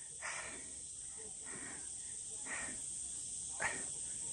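Heavy breathing close to the microphone, a noisy breath about once a second, from a climber winded on a steep cliff path. Behind it, insects buzz steadily at a high pitch.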